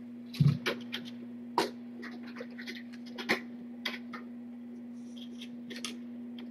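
Kittens scrambling about on a cardboard play castle and blankets: scattered short scratches and light knocks, the loudest a soft thump about half a second in, over a steady low hum.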